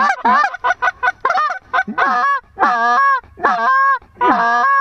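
Goose call blown by a hunter. It starts with a fast run of short clucks, about five a second, then about two seconds in it changes to longer drawn-out honks, each breaking upward in pitch, roughly one every half-second.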